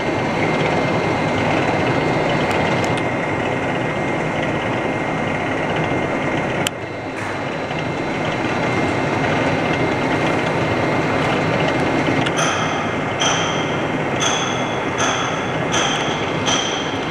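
Homogenizing emulsifying mixer running, its rotor-stator homogenizer head and scraper agitator turning in a paste inside a stainless steel kettle: a loud, steady mechanical noise. About twelve seconds in, a high squeak begins repeating a little faster than once a second.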